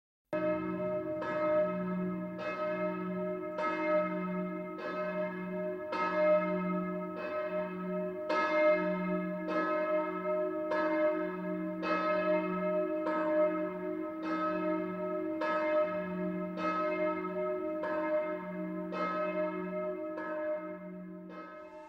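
Bells struck over and over in a steady rhythm, a little under two strokes a second. Each stroke rings on into the next over a held low tone.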